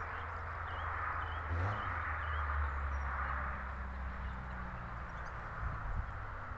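Outdoor ambience of a low steady rumble, with a small bird chirping a few short notes, about two a second, in the first couple of seconds.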